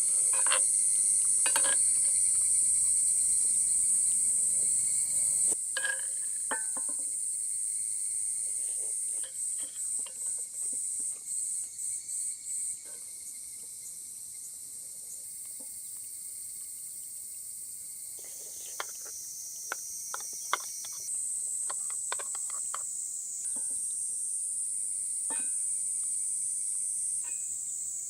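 Insects keeping up a steady high-pitched buzz, which pulses in a quick rhythm for a few seconds mid-way. Scattered light clicks and taps sound over it.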